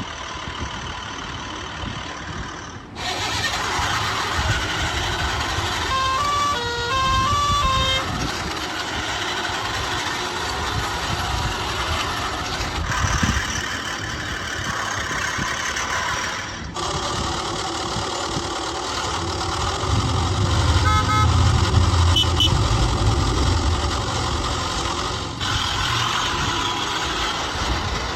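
Heavy-vehicle sound effects, truck engines running with horn honks, layered into a busy mix. A short tune of stepping notes comes in about six seconds in, and the mix changes abruptly a few times.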